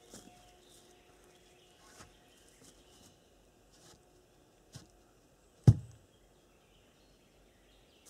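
A single heavy thud a little past halfway, with a few faint knocks before it, against a quiet outdoor background; a faint steady hum fades out in the first couple of seconds.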